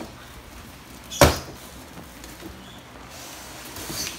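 Cardboard box flaps being pulled open, with one sharp thump of cardboard about a second in and faint rustling afterwards.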